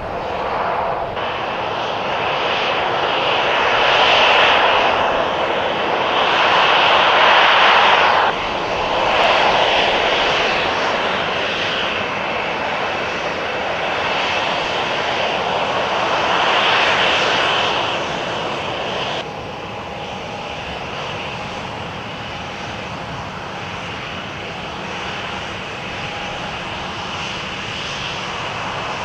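Jet airliner engines running, a loud rushing noise that swells and fades with sudden jumps in level. After about two-thirds of the way through it settles to a quieter steady rush with a thin high whine.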